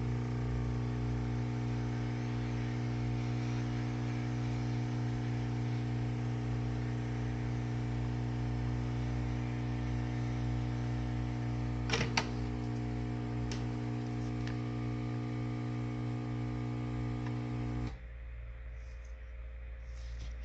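Hot-air gun running with a steady humming blow, heating the phone to soften its adhesive, then switched off abruptly near the end. A couple of sharp clicks come just past the middle.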